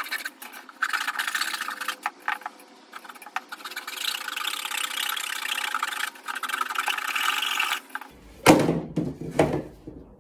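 Rasping, scraping strokes of cardboard being worked by hand, in bursts of a second or two, then a loud thump near the end.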